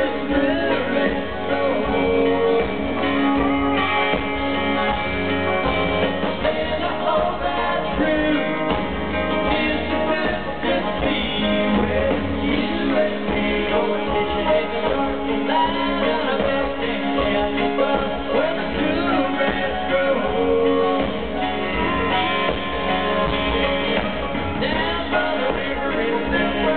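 Live country-rock band playing: a man singing lead over acoustic guitar, banjo, drums and keyboards.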